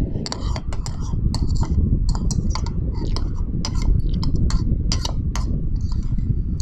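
Metal spoon and fork clinking and scraping against a ceramic bowl in many quick, irregular clinks while scooping food, over a steady low rumble.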